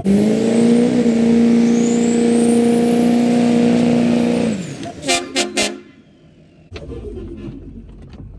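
Diesel pickup engine held at high revs, with a rising then falling turbo whistle; about four and a half seconds in the revs drop away. Three short sharp blips follow, then a quieter low hum.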